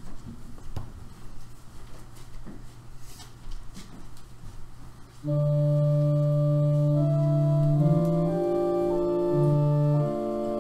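Quiet room with a few faint clicks and shuffles, then about five seconds in an organ starts playing hymn music: held chords whose notes change every second or so.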